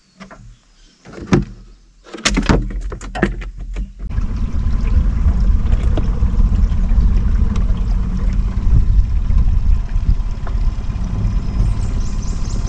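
A few clicks and rattles, then from about four seconds in the steady low rumble of a small jon boat under way, its motor running with wind and water noise.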